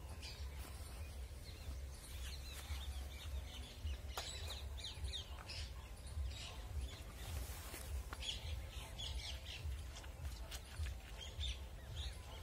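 Small birds chirping in short, repeated calls, over a steady low rumble.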